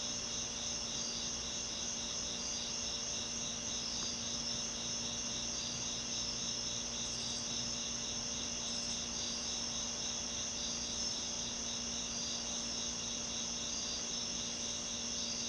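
Cast aluminum motor of a Wing-TAT 56-inch industrial ceiling fan running with a steady hum, with crickets chirping in a fast, even pulse behind it.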